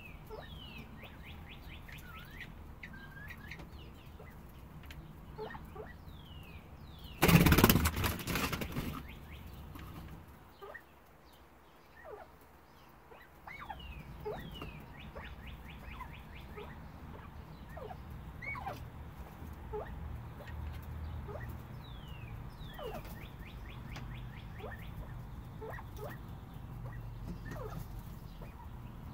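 White northern bobwhite quail calling in short falling chirps, scattered through, some in quick runs near the start. About seven seconds in, a loud rustling burst lasts a second or two.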